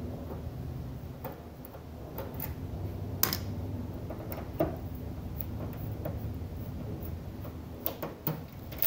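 Screwdriver backing screws out of a light aircraft's sheet-metal engine cowling: scattered light clicks and ticks at irregular intervals, over a low steady hum.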